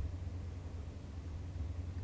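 Steady low background rumble with faint hiss; no distinct event.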